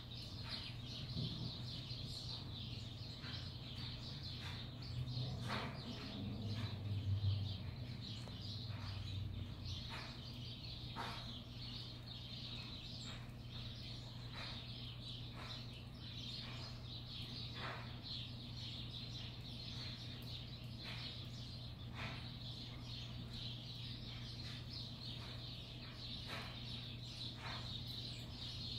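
House sparrows chirping: short cheeps every second or two over a steady background of high chatter. A low rumble swells and fades about five to eight seconds in, the loudest moment, with a faint steady hum underneath throughout.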